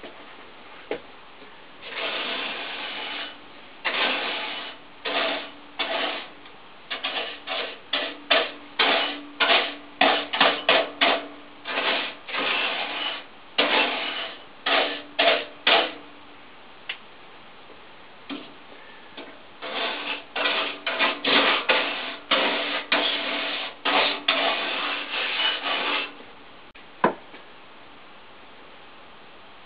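Repeated rasping rub strokes from a hand-held scrubbing tool worked back and forth, each stroke under a second, in two long runs with a pause of a few seconds between them. A single sharp click comes near the end.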